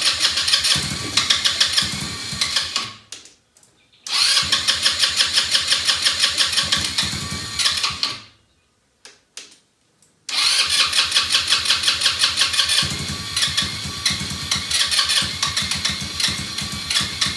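Elstar 150cc quad bike's single-cylinder engine being cranked on its electric starter in three long bursts, a whirring starter with a rhythmic chug, the engine sputtering and close to catching after fuel was dropped into the cylinder.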